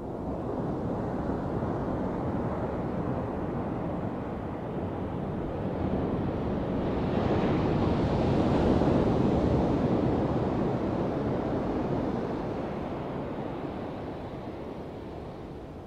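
Surf washing onto a sandy beach: a steady rushing of sea waves that swells to its loudest about halfway through, then eases off.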